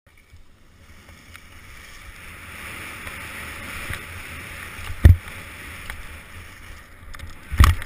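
Skis sliding fast over packed snow: a steady scraping hiss that builds as speed picks up, with low wind rumble on the microphone. Two sharp thumps break through, one about five seconds in and another near the end.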